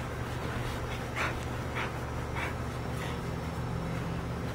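A small dog wrapped in a towel takes four short, breathy pants about half a second apart, over a steady low hum.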